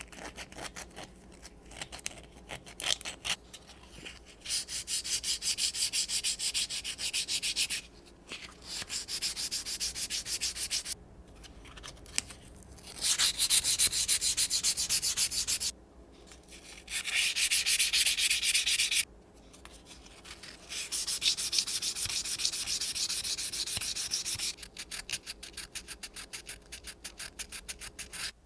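Hand-sanding an old knife's wooden handle and metal ferrule with a small sandpaper disc: rapid back-and-forth scratchy rubbing strokes in runs of a few seconds, with short pauses and lighter strokes between.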